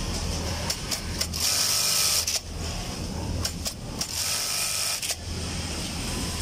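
Industrial sewing machine stitching in two bursts of about a second each, with clicks of the mechanism between them, over a steady low hum.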